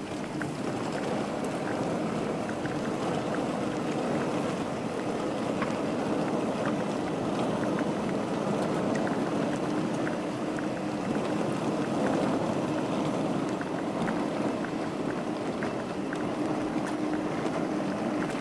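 Steady engine drone with a constant hum and an even rushing noise underneath.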